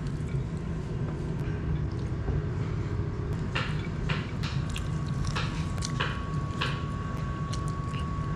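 Mouth sounds of a person eating chicken biryani with the hand: wet smacking and chewing, with a run of short sharp smacks a few seconds in. A steady low hum runs underneath.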